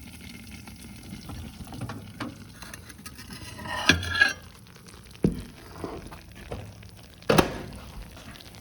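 Molten, overheated Gushers sugar and gelatin bubbling and crackling after microwaving, with a few louder sharp knocks.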